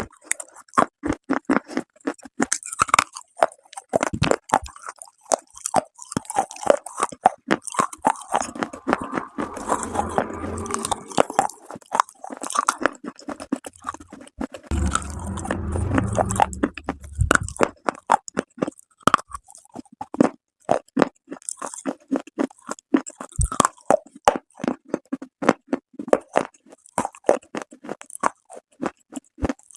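Close-up bites and chewing of hard, dry clay: a dense run of sharp crunches and cracks, with two stretches of heavier grinding chews about a third of the way in and again around the middle.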